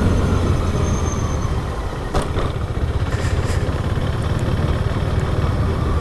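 Motorcycle engine running steadily while riding: a low drone under a constant rush of road noise, with a brief click about two seconds in.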